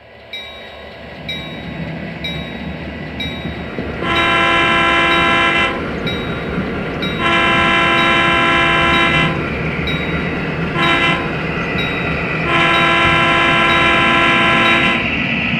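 Sound-equipped HO scale Burlington E-unit diesel locomotive sounding its horn long, long, short, long, the grade-crossing signal, over its running diesel engine. A bell dings about once a second under it.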